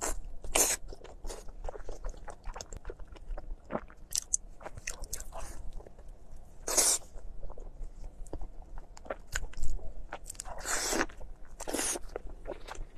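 Close-miked eating: biting into and chewing a soft, sauce-glazed large intestine stuffed with lamb brain, with many small wet mouth clicks and a few louder bursts about a second in, around seven seconds, and near the end.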